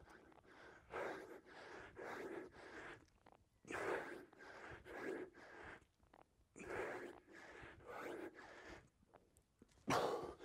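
A man breathing hard from exertion: short, forceful breaths in and out through the mouth, coming every half second to a second, with a louder puff near the end.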